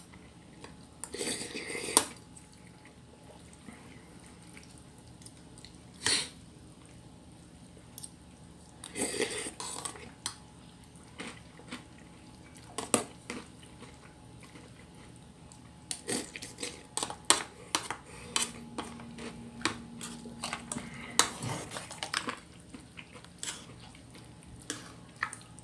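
Cutlery clinking and scraping against dishes while someone eats: scattered sharp clicks with a few short scraping stretches, busiest in the second half.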